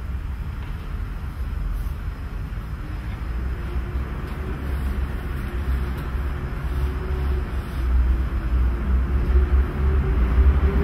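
Low, steady rumbling from a drum kit played without distinct strokes, swelling slowly in loudness, with a faint held tone coming in about halfway through.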